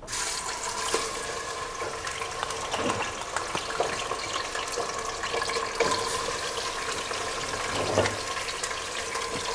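Raw beef chunks going into hot oil in a metal pot: loud sizzling and crackling that starts suddenly as the meat hits the oil, with a few sharper pops along the way.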